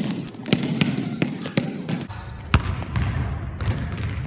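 A basketball bouncing and knocking on a hardwood gym floor, several sharp, irregular hits, with sneakers squeaking on the court in the first second or so.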